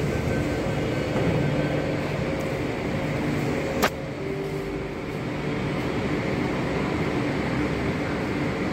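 Bengaluru Namma Metro train standing at the platform, a steady hum and rumble with a few faint steady tones running through it. A single sharp click about four seconds in.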